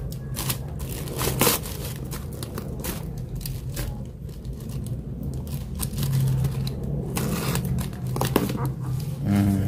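A box cutter slitting packing tape and cardboard, with irregular scratching and the crinkle of plastic wrapping. A steady low hum runs underneath.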